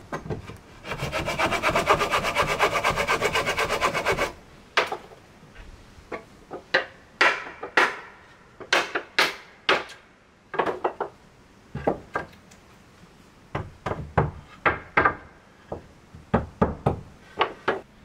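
A hand tool rasping on wood for about three seconds, then a run of sharp, irregular strikes of a hand tool on wood, often a second or less apart.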